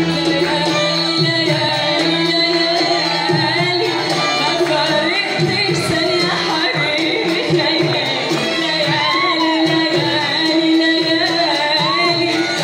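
A woman singing live into a microphone through a sound system, with a small band of violin and a plucked string instrument playing along.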